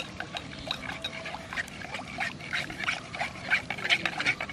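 Metal spoon stirring and scraping against a terracotta bowl, whisking milk powder into milk: quick, uneven scrapes and clinks that grow louder toward the end.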